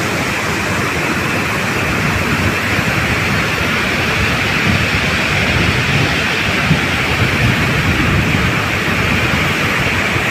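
Steady rushing hiss of river water pouring from a dam's outflow.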